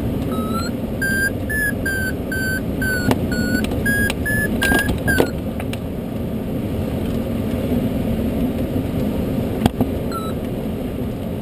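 Glider variometer beeping, about two short beeps a second for roughly five seconds, then stopping, with one more beep near the end: the audio signal that the glider is climbing in lift. A steady rush of airflow runs underneath, with a few sharp knocks.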